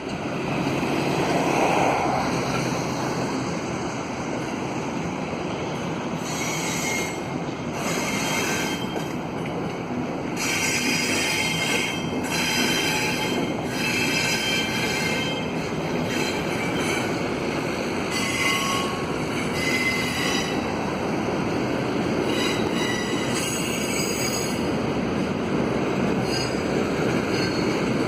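Freight cars of a double-stack container train rolling around a curve, their steel wheels squealing against the rails from the strain of the curve. The steady rumble of the passing cars carries high-pitched squeals that come and go, strongest in the middle stretch.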